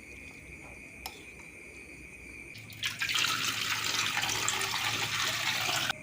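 Water running from a tap for about three seconds, starting suddenly a little before halfway and cutting off near the end, with a low steady hum under it. A steady high cricket trill runs throughout.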